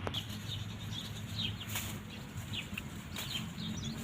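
Birds chirping: many short, high notes, each falling in pitch, in quick irregular succession over a low steady hum.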